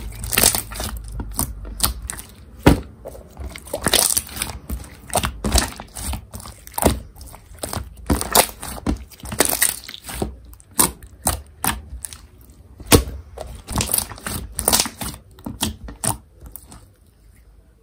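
Blue pearl glitter slime being stretched and squished by hand, giving an irregular run of sticky clicks and pops, several a second, that stops about a second before the end.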